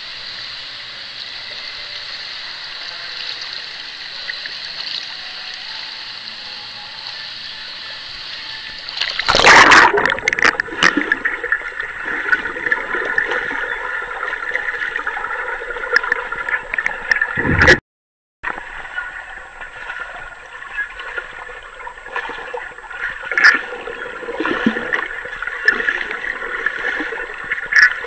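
Indoor pool ambience with a swimmer's freestyle splashing. About nine seconds in, the sound changes suddenly to underwater sound: muffled bubbling and sloshing from the swimmer's arm strokes, with a steady hum underneath. There is a brief cut to silence about two-thirds of the way through.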